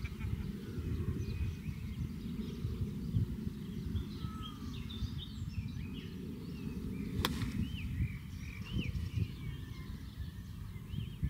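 A single sharp click about seven seconds in: a sand wedge striking a golf ball on a three-quarter pitch shot. Around it, a steady low rumble of wind on the microphone and scattered bird chirps.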